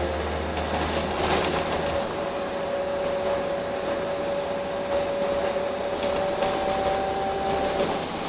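Wright Eclipse single-deck bus heard from inside the saloon while under way: a steady running drone with a whine held at one pitch. A second, higher whine joins near the end. A low rumble drops away about two seconds in, and there are a few light clicks and rattles.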